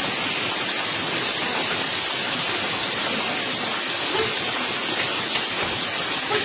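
Steady rain falling, an even unbroken rush of noise.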